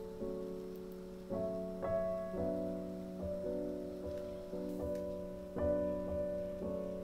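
Soft background piano music, with notes and chords struck at a slow, unhurried pace, each left to ring and fade.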